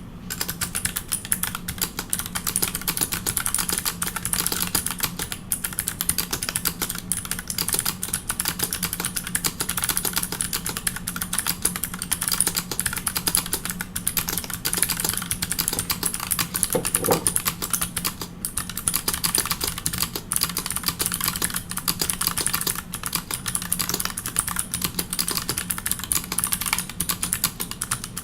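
Fast, continuous typing on a Pearl 40% mechanical keyboard with custom clicky MX-style (Aristotle) switches and GMK keycaps: a dense, unbroken stream of sharp key clicks at typing-test speed. A faint steady low hum sits underneath.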